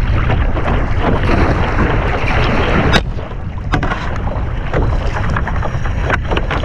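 Wind buffeting the action-camera microphone over water splashing from kayak paddle strokes. A sharp knock comes about three seconds in, after which the splashing eases and a few lighter clicks follow.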